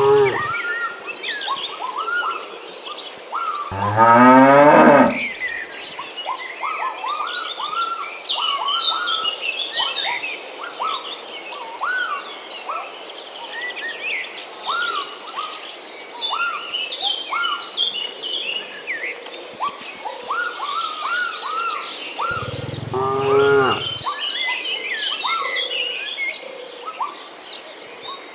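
Cattle mooing twice, a loud moo about four seconds in and another near the end, over steady bird chirping.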